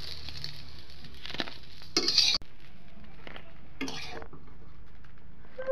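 Small fish frying in oil in a metal karahi, sizzling steadily, while a metal spatula scrapes and stirs them against the pan a few times, loudest about two seconds in.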